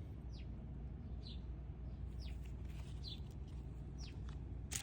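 A bird chirping in the background: short, high chirps that slide downward in pitch, repeated about once a second, over a steady low hum.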